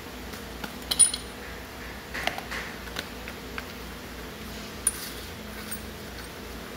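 Small metal suspension parts (nuts, washers, strut top-mount pieces) clinking as they are handled and set down on cardboard. The sharpest clink comes about a second in, followed by a few lighter clicks over the next four seconds.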